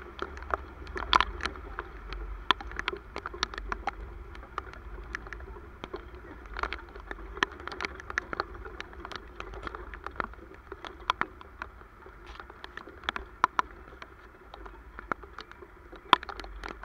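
Raindrops striking close to the microphone as sharp, irregular ticks, a few a second, over a low wind rumble.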